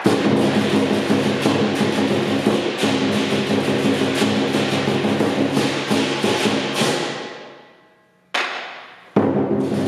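Lion dance percussion: a large drum beaten with clashing hand cymbals in a fast, dense rhythm. About seven seconds in the playing stops and its ringing dies away; one stroke rings out just after eight seconds, and the full beat starts again about a second later.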